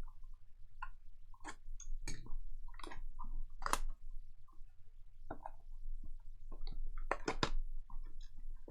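Trading cards and packs being handled: irregular light clicks, snaps and rustles as cards are flipped through, over a faint steady low hum.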